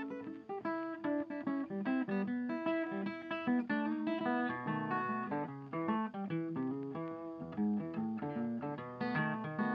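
Background music on acoustic guitar: a steady run of quick plucked notes.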